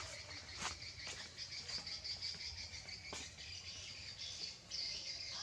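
Insects chirping steadily in a high, rapidly pulsing drone, with a couple of sharp clicks.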